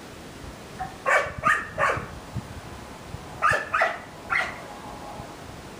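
A dog barking: two runs of three short barks, the first about a second in and the second about three and a half seconds in.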